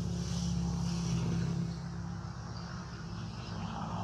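A motor engine running steadily with a low hum.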